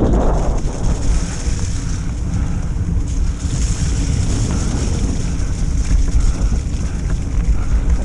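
Wind buffeting an action-camera microphone over the rumble of mountain-bike tyres rolling on a wet, muddy dirt trail. The noise is loud and steady, strongest in the low end.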